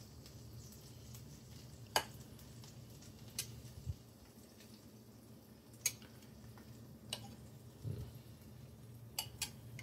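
Knife blade clicking and scraping against the inside of a ceramic bowl as it is worked around the edge of a baked keto mug bread to loosen it. A handful of sharp clicks, a second or two apart, over a faint low hum.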